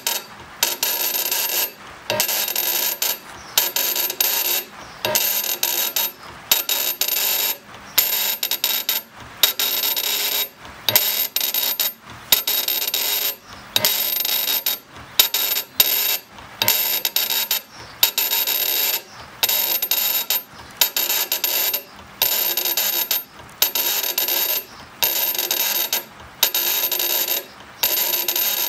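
CNC granite engraving machine cutting stone: a scratchy, metallic grinding from the engraving bit, with a thin high whine, coming in bursts of about a second broken by short pauses.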